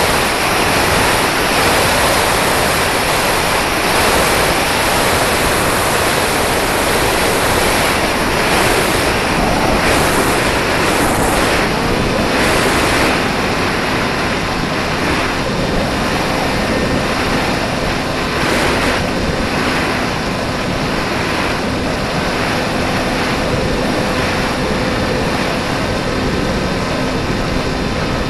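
Loud, steady rush of wind over the onboard microphone of a radio-controlled plane in flight. From about halfway on, a faint, steady motor tone shows through under it.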